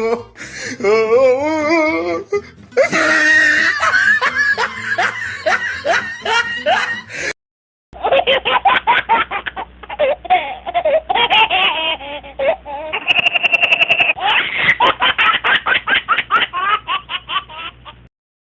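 Laughter sound effects played back to back: a first clip of laughter with a wavering, up-and-down pitch, then after a brief break a longer clip of fast, repeated bursts of laughing.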